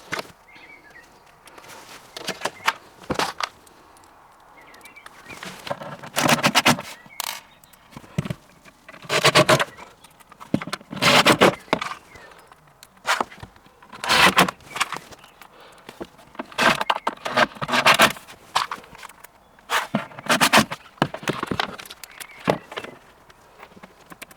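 Plastic roller-door track and spiral pieces being handled and fitted together: irregular short bursts of scraping and clicking, a dozen or so, every one to three seconds.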